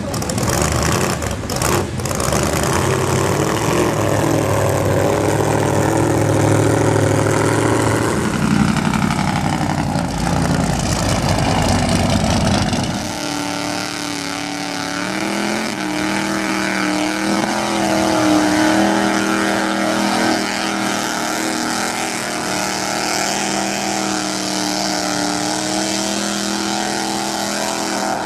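Lifted four-wheel-drive trucks' engines revving hard while driving through a mud bog. About halfway through the sound changes to a steadier droning engine note.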